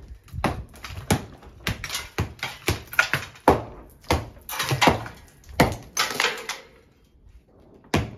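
Hammer striking a plastered wall, knocking off old crumbling plaster: a quick, irregular run of sharp blows, about two a second, with a short pause near the end.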